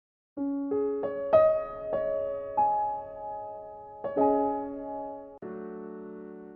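Soft piano music. After a brief silence, single notes enter one after another in a rising broken chord and ring on, followed by two held chords.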